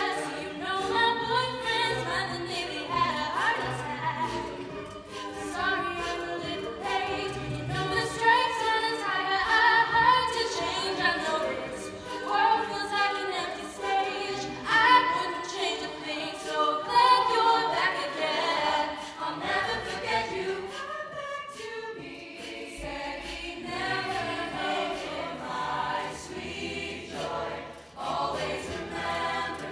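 An a cappella group of men's and women's voices singing a pop song without instruments: a woman sings the lead melody into a microphone over backing harmonies and a low bass line from the rest of the group.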